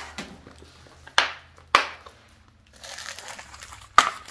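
Clear plastic storage box being opened and bubble wrap crinkling as it is handled: three sharp plastic clicks, two close together about a second in and one near the end, with a stretch of crinkling rustle between them.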